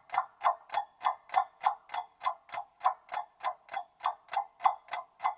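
Countdown clock ticking sound effect: an even, steady tick-tock at about four ticks a second.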